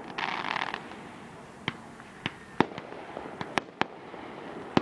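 Aerial fireworks: a short crackling burst in the first second, then a string of about six or seven sharp bangs spread over the next few seconds.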